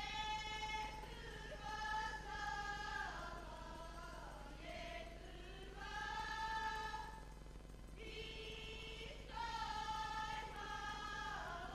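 A group of voices singing a Serbian folk song in long held phrases, several of which slide down in pitch at the end.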